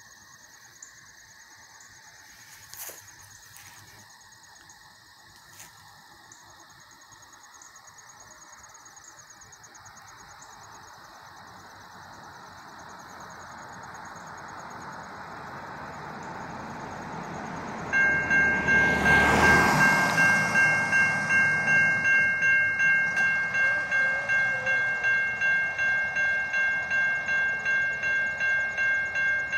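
An approaching train's rumble slowly grows louder, then about eighteen seconds in a railroad crossing bell starts ringing steadily at about two strokes a second: the crossing warning signal going off for the oncoming train.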